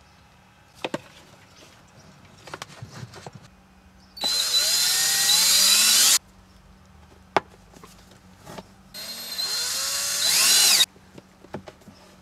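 Cordless drill boring through the wall of a plastic garbage-can reservoir, in two runs of about two seconds each, its whine rising and falling as the bit cuts, with handling knocks between the runs.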